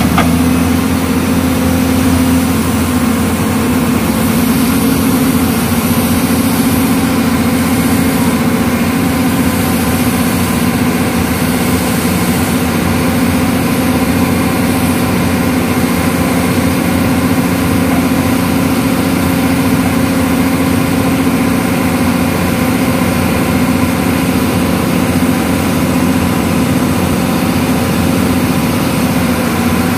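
Hyundai excavator's diesel engine running steadily at close range as the machine works, a constant even drone with no rise or fall. A short click sounds right at the start.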